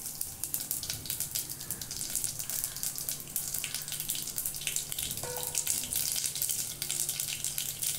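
Mustard seeds, urad dal and cumin spluttering in hot oil in a stainless steel pot: a dense, rapid crackling and popping over a steady sizzle. This is the tempering stage, the seeds bursting because the oil is hot enough.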